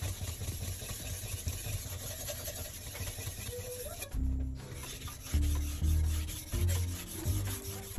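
Steel kitchen-knife blade stroked back and forth on a wet whetstone, a steady gritty scraping that stops abruptly about four seconds in. Background music with deep bass notes plays throughout and carries the rest.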